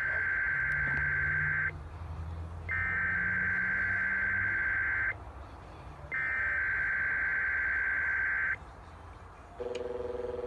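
Emergency Alert System SAME header sounding three times: identical bursts of high warbling digital data tones, each about two and a half seconds long with about a second between them, which open a Required Weekly Test. Near the end a lower steady tone begins.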